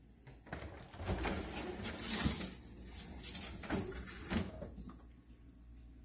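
Bottom freezer drawer of a Samsung French-door refrigerator being pulled open, sliding out on its rails with a rushing, rubbing noise and a soft knock about two seconds in and another about four and a half seconds in.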